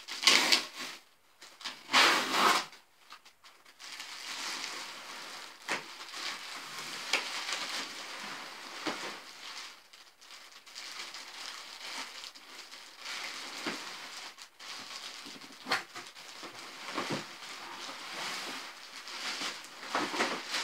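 Cardboard packaging scraping as a box end is opened, with two loud scrapes in the first three seconds. Then a long stretch of clear plastic wrapping crinkling and rustling, with scattered sharper crackles, as a plastic-wrapped stroller is slid out of its cardboard box.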